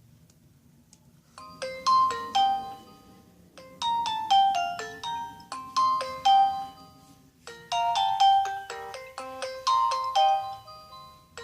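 A Nokia 216 ringtone played on a Sony Ericsson W595 mobile phone: after a quiet start, a melody of quick, separate notes begins about a second and a half in and runs on in short repeating phrases.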